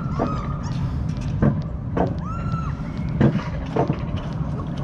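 Alpine mountain coaster sled running along its tubular steel track: a steady low rumble broken by irregular knocks, with a few short high squeaks over it.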